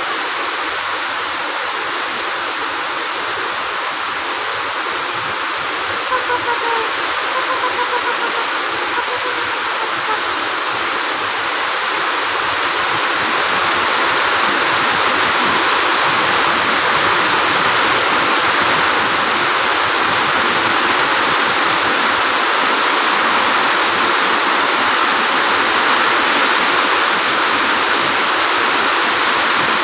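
A steady, loud rushing noise that grows louder about 13 seconds in. A faint, slightly falling tonal call sounds for a few seconds partway through.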